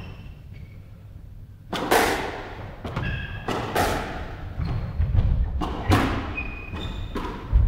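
Squash rally: the rubber ball is struck by rackets and smacks off the court walls in a string of sharp hits that start a couple of seconds in, each echoing in the enclosed court, with short squeaks between the hits.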